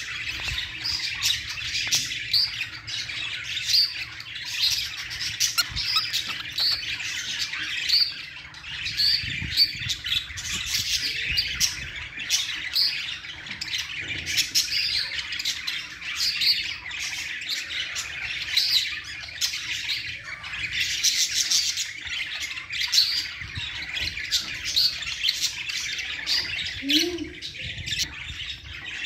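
Cockatiels chirping and squawking without pause: dense chatter with short rising calls repeating a little more than once a second.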